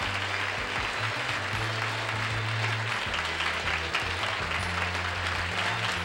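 Studio audience applauding over the game show's closing theme music, a low bass line stepping between held notes beneath the clapping.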